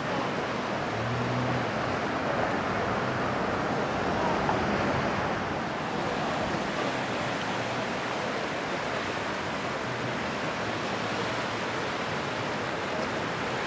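River water rushing steadily past wading anglers, an even, unbroken rush of flowing current.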